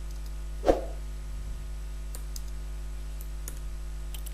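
Sparse computer keyboard key clicks as a short terminal command is typed. There is one louder dull thump about a second in, over a steady low electrical hum.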